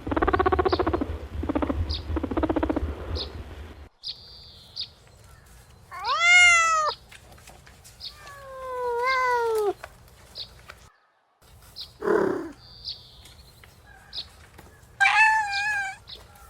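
A wavering, pulsing animal call over a low hum for the first few seconds. After a break, a cat meows three or four times, each meow rising and then falling in pitch. Short high chirps recur in the background.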